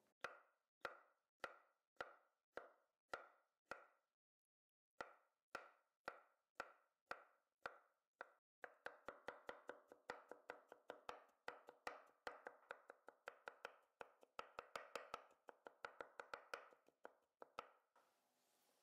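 Chef's knife cutting green olives on a wooden cutting board, each stroke knocking on the board. Slow single cuts about twice a second, with a brief pause, then fast chopping at about five strokes a second that stops near the end.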